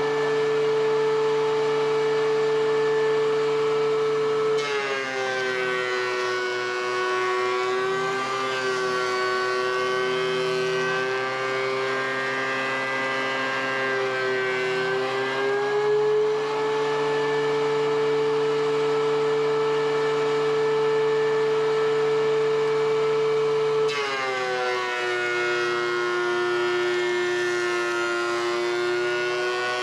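DeWalt DW735 thickness planer running with a loud, steady whine while planing pine boards. Its pitch drops as a board feeds in and the cutterhead takes load, rises back when the cut ends, and drops again as the next board goes through.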